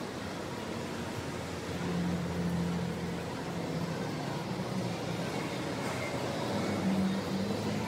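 Outdoor city-centre street ambience: a steady wash of distant traffic noise. A low hum swells about two seconds in and again near the end.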